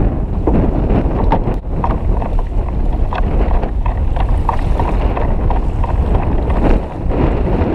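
Strong wind buffeting the microphone, with choppy water splashing and slapping against the kayak's hull.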